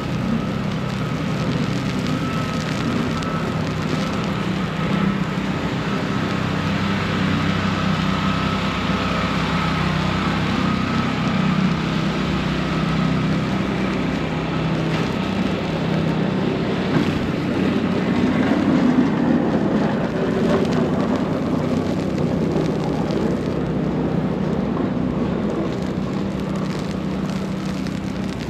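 City street ambience: a steady low engine hum from a nearby vehicle over a constant hiss, with a faint high whine that fades out about halfway through.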